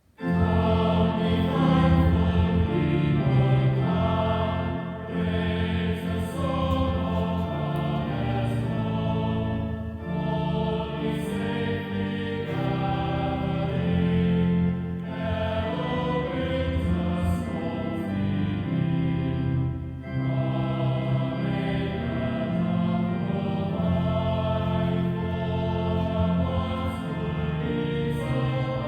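Choral music: a choir singing slow, sustained chords that change every second or so, starting suddenly out of silence.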